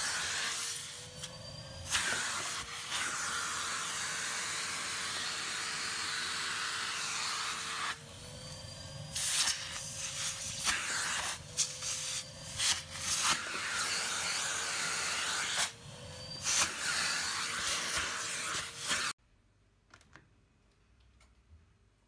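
Vacuum cleaner running, its nozzle drawn over the dust-caked cloth filter of a Henry vacuum to suck the dust out. It is a steady airy hiss with a motor hum whose pitch rises briefly several times. It stops abruptly about 19 seconds in.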